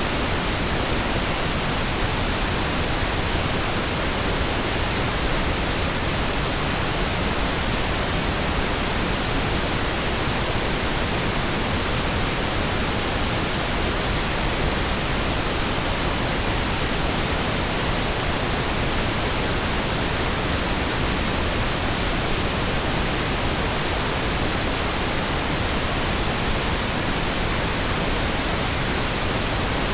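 Steady, continuous pink noise: an even hiss with no changes or interruptions.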